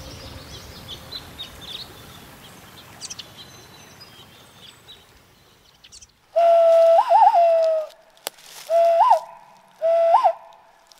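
Hand whistling through cupped hands: three loud notes starting about six seconds in, each a steady tone with a quick upward flick that drops back, the first with two flicks. Before them, faint bird chirps.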